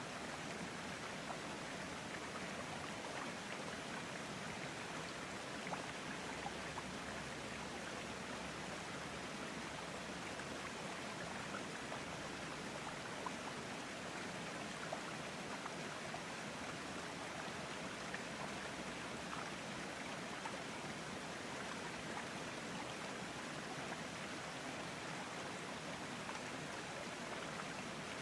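Steady running and trickling of water in a planted aquarium fitted with a sand waterfall, with a few faint ticks here and there.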